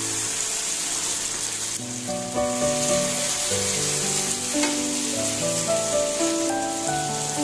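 Chicken pieces sizzling in a thick spiced sauce in a frying pan, stirred with a wooden spatula, over background music of held, stepping notes.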